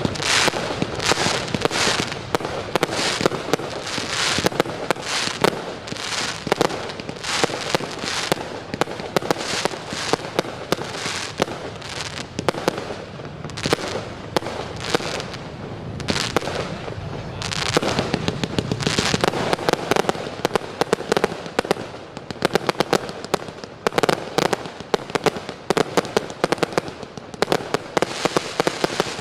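Fireworks going off in a continuous, rapid stream of sharp pops and crackles, growing denser past the middle.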